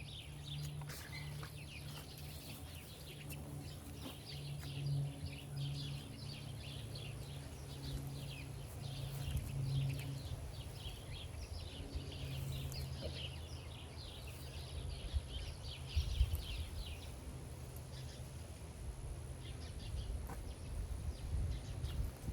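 Small birds chirping in a busy, continuous chatter over a steady low hum. The chatter dies away about three-quarters of the way through, and a few dull thumps come near the end.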